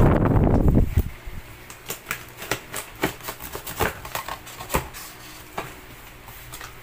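Cardboard box flaps being handled and pulled open: a loud rubbing scrape for about the first second, then a run of irregular sharp clicks and crackles of the cardboard.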